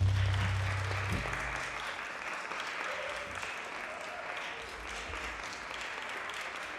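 Audience applauding, a dense clapping that starts suddenly and continues throughout. A low held note sounds under it and stops about a second in.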